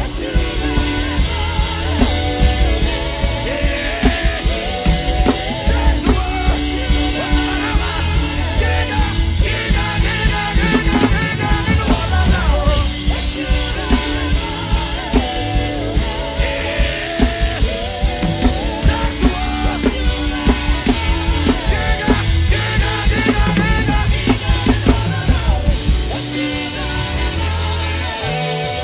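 Drum kit played hard and fast, heard up close, with a dense run of snare, tom and cymbal strokes over live band music and singing.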